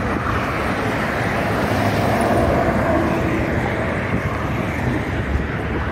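Road traffic passing close by on a busy multi-lane road: cars, pickups and a truck driving past, heard as a steady noise with no pauses.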